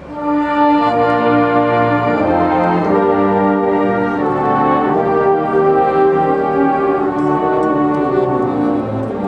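Military brass band playing held, sustained chords, coming back in after a brief pause at the start.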